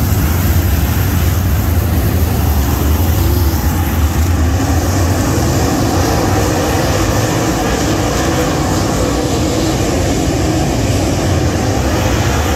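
Dirt late model race car's 604 crate V8 engine running loudly and continuously, its pitch shifting up and down.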